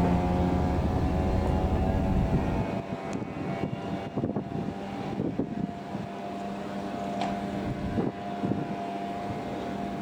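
An engine running with a steady drone that drops in level about three seconds in, with a few light knocks afterwards.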